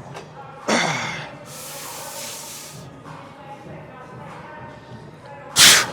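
A powerlifter's forced breathing under a loaded squat bar: a grunt falling in pitch about a second in, then a long hissing exhale, and a loud sharp burst near the end.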